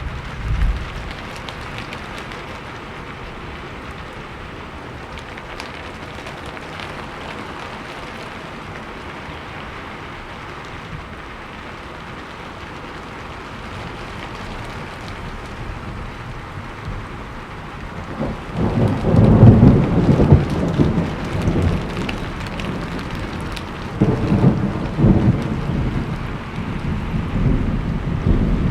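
Steady rain falling, with thunder rolling in about two-thirds of the way through and a second, shorter roll a few seconds later; the first roll is the loudest.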